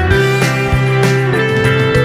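Instrumental background music led by guitar, with sustained notes over a bass line and a steady beat.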